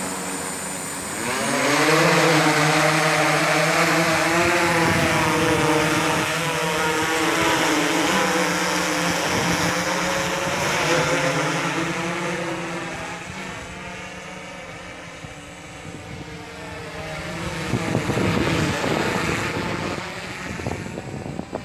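DJI S1000 octocopter's eight electric motors and propellers spinning up for takeoff about a second and a half in, then a steady multi-tone propeller drone that drifts in pitch as the craft flies about. It fades somewhat after the middle and grows louder again near the end.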